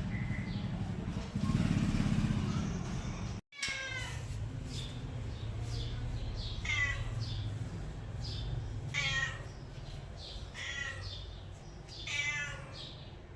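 A cat meowing repeatedly: about five meows a couple of seconds apart, each falling in pitch, over a low steady hum. A louder low rumble fills the first few seconds and cuts off abruptly.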